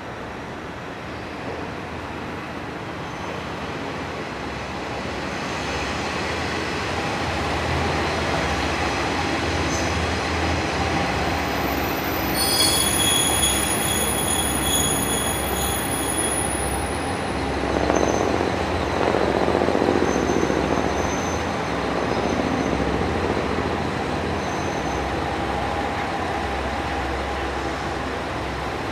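A commuter train running into a station and drawing to a stop, its rumble building up, with the high-pitched squeal of wheels and brakes for several seconds midway.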